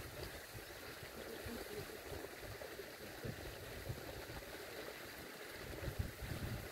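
A geyser erupting, its jet of boiling water and steam making a steady splashing rush. A low rumble comes up near the end.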